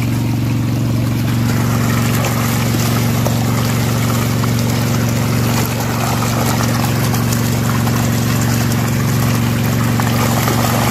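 Diesel water-pump engine converted to run on LPG from a cooking-gas cylinder, running steadily and driving a water pump, with water pouring out of the pipe.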